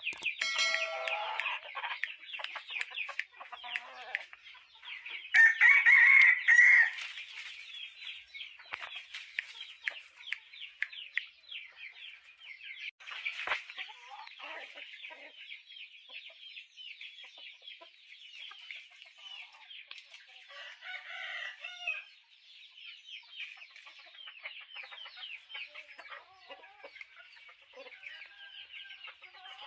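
A flock of chickens clucking and calling continuously in quick short notes. One much louder call lasting about a second and a half comes about five seconds in.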